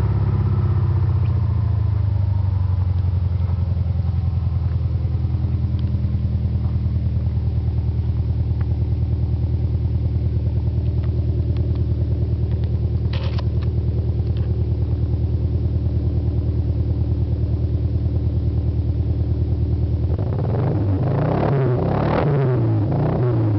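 Exhaust of a 1990 Chrysler Daytona Turbo ES's 2.5-litre turbocharged four-cylinder running at a steady speed, heard at the tailpipe with an even pulsing beat. Near the end the steady note breaks up into wavering, rising and falling pitches.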